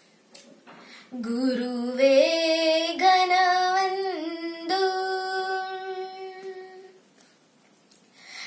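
A young girl singing a Kannada devotional vachana alone, in long drawn-out vowels with no words between. The held notes climb in steps, then level off; she comes in about a second in and breaks off about seven seconds in.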